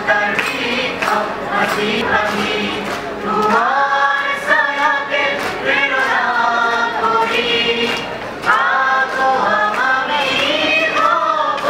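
A group of voices singing a song in chorus, with music and a regular percussion beat.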